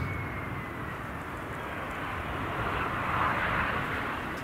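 Bombardier CRJ-900 landing, its twin rear-mounted GE CF34 turbofans heard as a high whine sliding slowly down in pitch over a rush of engine noise. The rush swells to its loudest about three seconds in as the jet passes closest on the flare.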